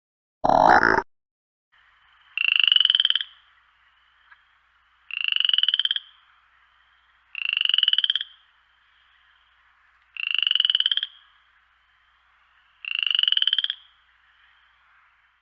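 Frog croaking: one short, loud croak about half a second in, then five rattling, pulsed croaks, each just under a second long, coming about every two and a half seconds, over a faint steady hiss.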